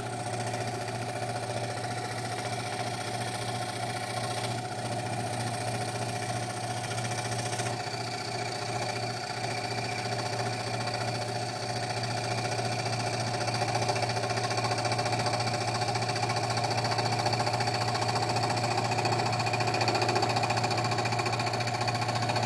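Scroll saw running steadily with an even mechanical buzz, getting a little louder about halfway through.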